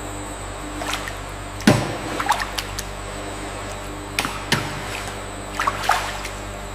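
Milk splashing and sloshing in a stainless steel vat as it is stirred and scooped with a steel paddle, several separate splashes over a steady low hum.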